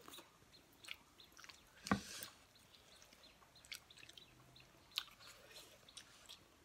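People eating chicken by hand: soft chewing and mouth smacks, with a few sharp clicks, the loudest about two seconds in.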